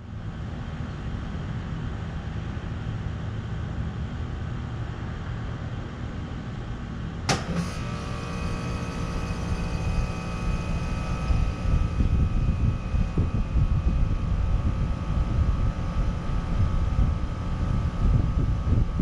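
Trane XR14 3-ton central air conditioner condensing unit starting up: a steady low hum, then a sharp click about seven seconds in as it kicks on. A steady whine then joins in, and the running sound of its scroll compressor and fan grows louder from about ten seconds in.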